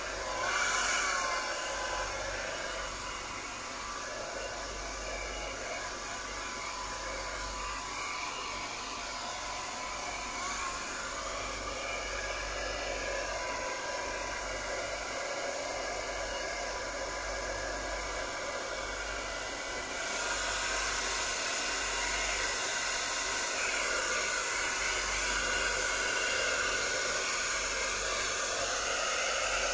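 Handheld hair dryer blowing steadily, drying a kitten's fur; it gets louder about two-thirds of the way through.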